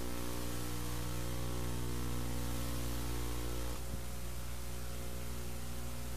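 Steady electrical mains hum with a layer of hiss, the noise floor of an analogue VHS tape transfer. About four seconds in, the higher tones of the hum drop out and the hiss changes.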